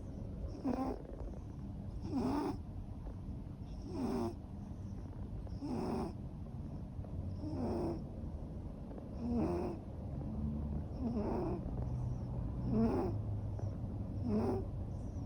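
Ragamuffin cat snoring in its sleep: a short, wavering snore on each breath, nine in all, evenly spaced about every second and a half to two seconds.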